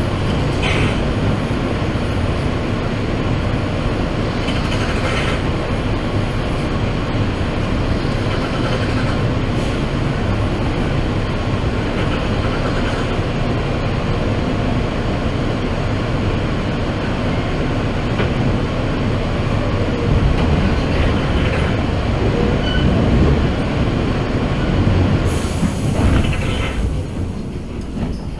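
New York City subway car running along the track, heard from inside the car: a steady rumble of wheels on rail, with a few brief screeches from the wheels.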